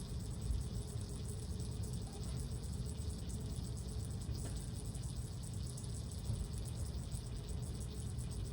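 Insects chirping steadily, a high thin pulsing, over a steady low rumble.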